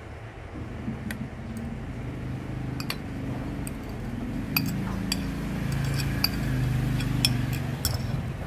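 A metal utensil clinking a dozen or so times against a ceramic dish and a stainless steel pan as cubed butter is scraped into melting chocolate. A low steady rumble underneath grows louder toward the end.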